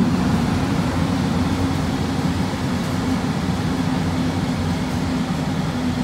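Large McQuay rooftop air-conditioning unit running with a steady low mechanical hum.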